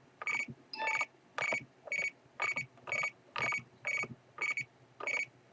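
RadioMaster TX16S radio transmitter beeping: short, identical high beeps repeating evenly about twice a second.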